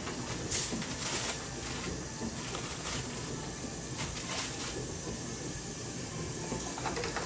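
Glass baking dish being set down and slid along a wire oven rack: a few light clinks and knocks of glass on metal, the sharpest about half a second in, over a steady hiss.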